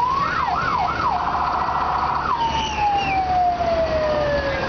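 Fire truck siren rising, sweeping up and down a few times, then warbling rapidly for about a second, then sliding down in one long falling tone. The truck's engine rumbles low underneath.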